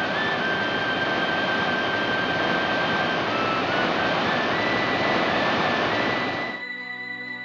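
Ocean surf breaking on a beach, a steady rush of noise, with soft sustained music notes over it. The surf cuts off suddenly about six and a half seconds in, leaving only the music.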